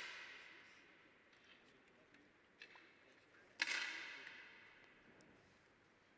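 10 m air rifle shots from the firing line. A sharp crack about three and a half seconds in echoes and fades over more than a second, a fainter click comes a second before it, and the fading echo of another crack is heard at the start.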